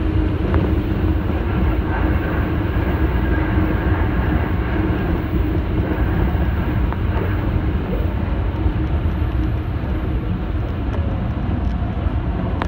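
Tsukuba Express electric train running, heard from inside the front car: a steady low rumble of wheels on rails with a continuous hum.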